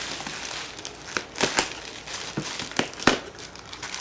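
Plastic bags and packing material being crinkled and rustled by hand, with sharp crackles, the loudest about one and a half and three seconds in.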